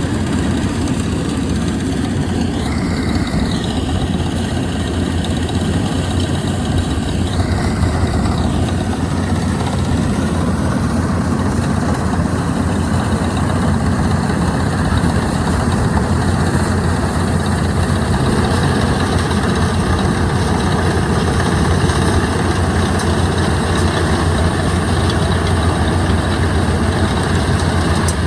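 Diesel engine of a Yanmar tracked combine harvester running steadily and hard while it tows a mud-bogged tracked cart out of deep, soft paddy mud. Two short high-pitched squeals come through about three and eight seconds in.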